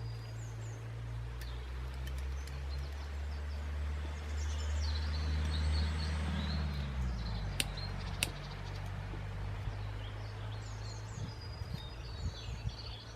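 Turbo (jet) lighter hissing while lighting a solid fuel cube, the hiss swelling for a few seconds and followed by two sharp clicks a little past the middle. Birds chirp in the background.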